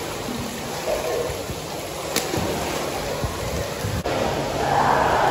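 Indoor swimming-pool hall ambience: a steady rush of splashing water and a fountain jet, echoing in the hall. A brief click about two seconds in, and the noise grows louder near the end.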